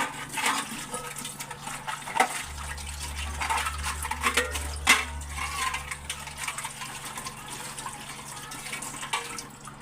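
Tap water running into a kitchen sink while dishes are washed, with repeated clinks and knocks of dishes and utensils being handled, the sharpest right at the start and about five seconds in.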